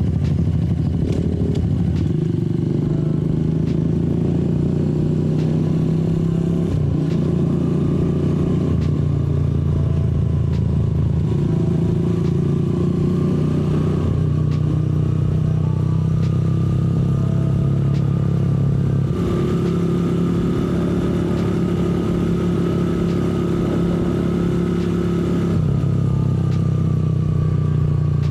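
Benelli Motobi 200 Evo motorcycle engine running steadily while riding, its note shifting a few times as the rider changes speed.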